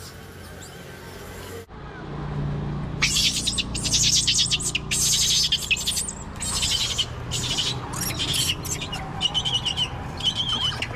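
Rapid high-pitched chirping and squeaks, starting about two seconds in, with a few short held calls near the end.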